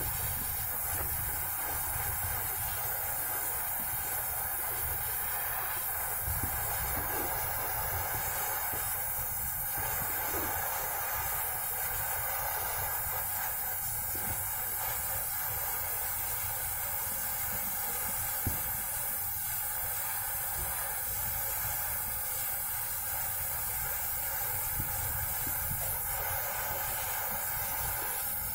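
Oxy-fuel gas welding torch flame hissing steadily as it heats a brazed pipe joint on an air-conditioner compressor, softening the joint so the pipe can be pulled free.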